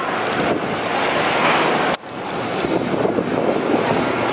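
Steady rushing noise of jet airliners on an airport apron, with a sharp dip about halfway through before it resumes.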